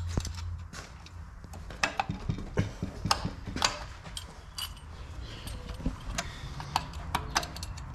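Scattered light metallic clicks and taps as a snap ring and spring retainer are worked toward their groove in an automatic transmission's piston bore, with the retainer held down against a stiff spring.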